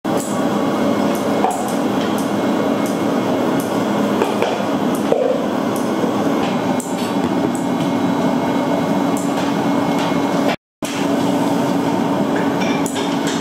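Bakery kitchen work noise: a steady machine hum under scattered light taps and clicks of tools. It drops out for a split second about ten seconds in.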